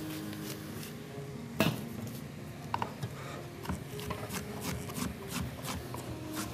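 Chef's knife chopping onion on a cutting board, short knocks at about three strokes a second through the second half. A single sharp knock about a second and a half in.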